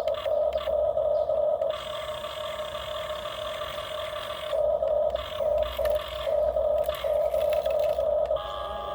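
Small electric gear motors of radio-controlled toy construction vehicles whining as they run: loud at first, easing off after about two seconds, then loud again from about halfway with a few brief stops.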